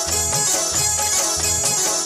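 Bollywood film-song music in an instrumental passage, with a steady pulsing bass beat about twice a second under dense instrumental backing.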